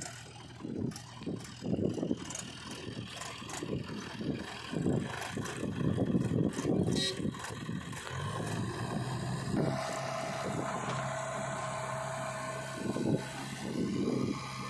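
Diesel engine of a tractor or backhoe running, uneven and surging at first, then settling into a steady hum about eight seconds in.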